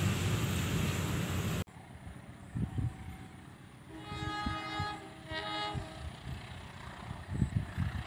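A loud steady rumbling noise that cuts off abruptly about a second and a half in, then a diesel locomotive's horn sounding two blasts, the first about a second long, the second shorter.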